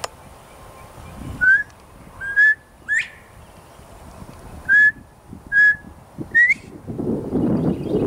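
Male northern bobwhite whistling its "bob-bob-white" call twice, each call three clear notes, the last rising sharply. The uploader takes this for the male's mating call.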